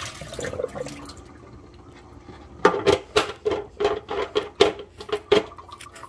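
Water pouring out of a humidifier's plastic water tank into a stainless steel sink, tapering off within the first second. After a short lull comes a quick, irregular run of about a dozen sharp knocks and splashes.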